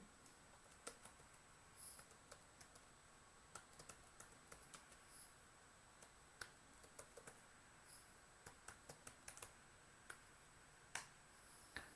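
Faint computer keyboard typing: scattered single keystrokes at an uneven pace, with a louder key press near the end.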